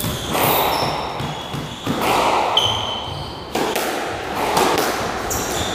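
Squash rally: a squash ball struck by rackets and hitting the court walls, three sharp knocks that ring on in the echoing court, with short high squeaks of court shoes on the wooden floor.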